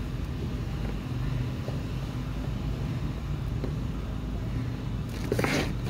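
Steady low hum of a running motor, with a short scratchy rustle about five and a half seconds in.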